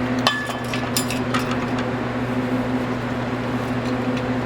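Steady low machine hum, with a few light clicks and clinks of handled parts in the first second and a half.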